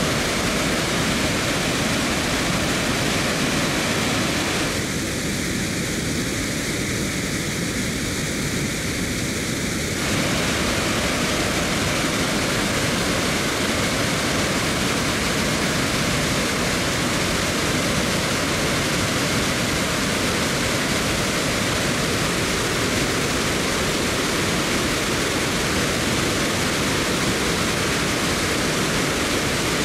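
Reservoir bellmouth overflow spillway in full flood: a steady, loud rush of water pouring over the rim and down the shaft. From about five to ten seconds in, the rush is a little quieter and changes in tone.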